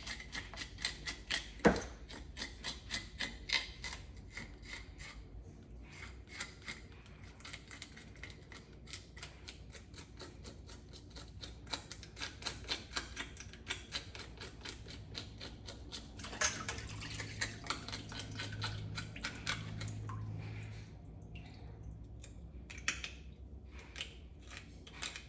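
Knife scraping scales off a raw fish: a fast, uneven run of short scratchy strokes, with a few brief pauses.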